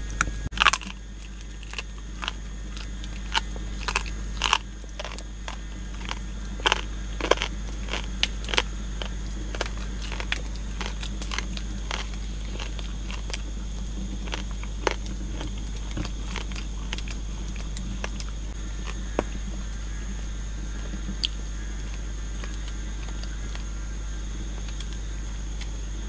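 A person chewing and biting into food: irregular crunching clicks, thick in the first ten seconds or so and sparser after, over a steady low hum.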